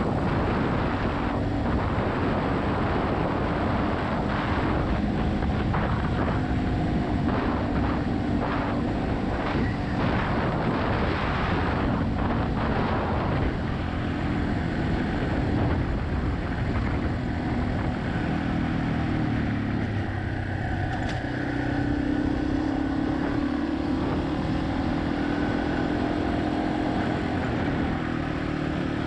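Yamaha XT250's single-cylinder engine running as the motorcycle is ridden, its pitch shifting up and down with the throttle. A rushing noise of wind and road lies over it, heavier in the first half.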